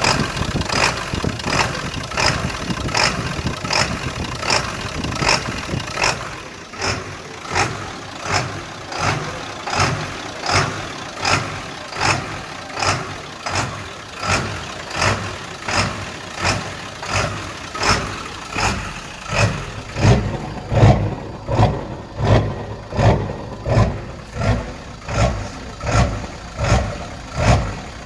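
2001 Ford 7.3 L Power Stroke turbodiesel V8 running at a rough idle, its sound swelling in a regular beat about one and a half times a second. The beat is less distinct for the first few seconds, then sharp and even. The owner does not know what is causing the rough idle.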